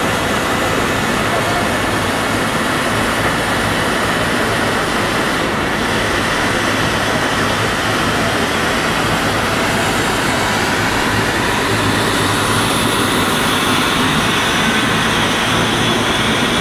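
HDPE/PP film recycling extrusion line running while processing film: a loud, steady machinery noise with a few faint steady tones.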